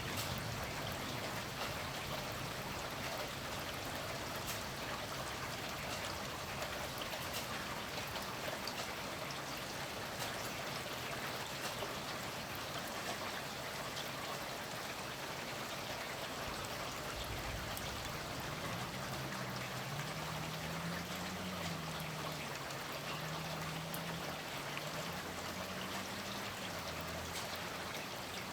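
Steady rain falling, an even hiss of water with many small drop ticks. A faint low wavering drone comes in about two-thirds of the way through.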